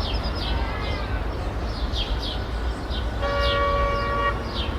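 City street ambience: a steady low rumble of distant traffic with birds chirping in short, falling calls about twice a second. About three seconds in, a distant vehicle horn sounds one held blast lasting about a second.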